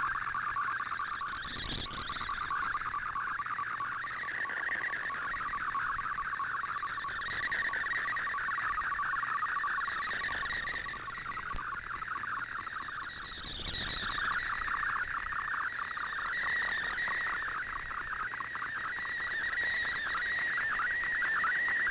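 Shortwave data-mode picture signal from a 7780 kHz broadcast heard through an Icom IC-R8600 receiver: a steady, warbling band of tones between about 1 and 2 kHz over light radio hiss, as Fldigi decodes an MFSK image line by line. Two brief swells of static or fading come about two seconds in and again near the middle.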